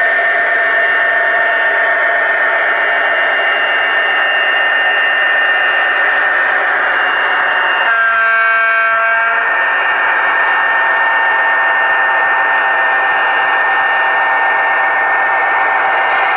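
Sound decoder in a model diesel locomotive playing a steady diesel engine running sound through its small speaker. About eight seconds in it gives a single horn blast lasting about a second and a half.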